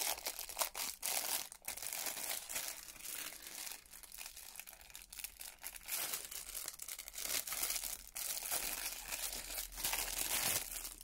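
Thin clear plastic packaging crinkling and rustling with irregular sharp crackles as a pair of plastic hanger hooks is unwrapped by hand.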